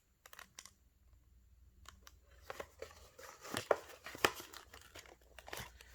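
Trading-card pack wrappers crinkling and tearing as a pack of baseball cards is handled and opened: a few faint clicks, a short quiet stretch, then from about two and a half seconds in a quick run of sharp crinkles and rips.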